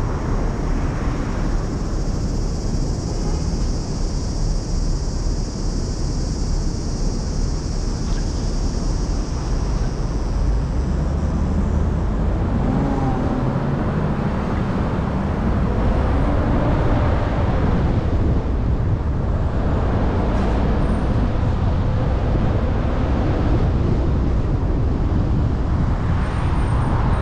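Car driving in city traffic: a steady low rumble of engine and road noise. From about halfway through, a wavering engine tone comes in as the car moves off and drives on.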